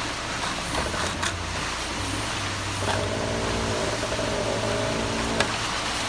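Front-discharge ready-mix concrete truck's diesel engine running with a steady hum. About three seconds in a steady whine joins it, ending at a click shortly before the end.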